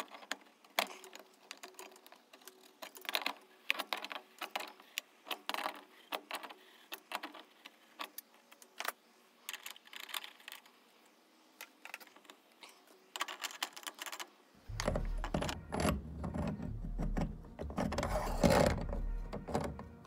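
Scattered metallic clinks and taps as a pipe wrench and a large brass nut are worked onto a brass pipe fitting. About three-quarters of the way in, the handling grows louder and denser over a steady low hum.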